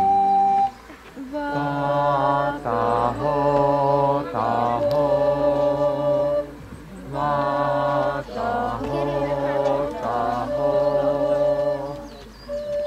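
Unaccompanied chant-like singing in two long phrases of about five seconds each, the second repeating the tune of the first.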